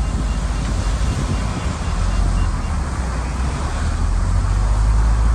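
Shantui crawler bulldozer's diesel engine running under load, a steady low rumble that grows a little louder in the second half.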